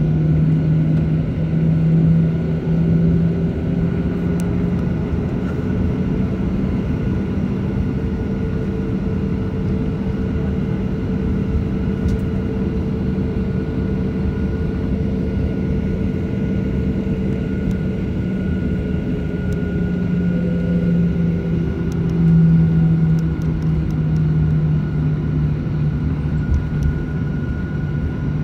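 Cabin noise inside a Boeing 737-800 while taxiing, its CFM56-7B jet engines running near idle. A steady low hum carries a faint high whine and a faint middle tone that drifts slightly up and back down, with no takeoff surge.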